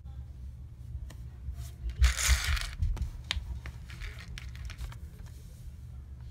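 Watercolour painting supplies handled on a desk: a short loud swish about two seconds in with a few low knocks, then a string of light clicks and taps. Meanwhile a flat brush ends up standing in the plastic water tub and a thin brush is picked up.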